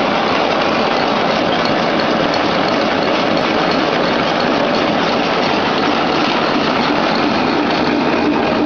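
Napkin folding machine with embossing and two-colour printing running: a steady, loud mechanical noise.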